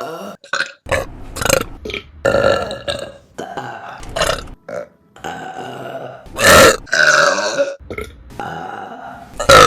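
A quick succession of women's burps from different clips, cut one straight after another, some short and some drawn out. The loudest is a long burp about six and a half seconds in, with another loud one near the end.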